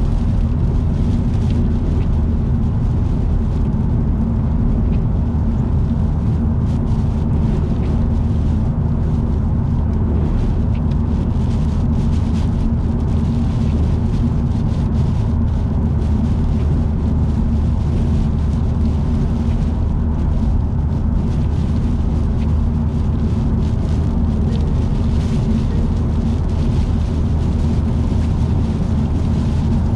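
Steady low drone of a car's engine and tyres heard from inside the cabin while cruising on an expressway, with faint ticking over it.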